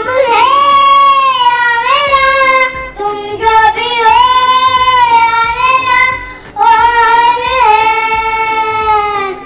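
A child singing long, high held notes in three phrases, with short breaths about three and six seconds in.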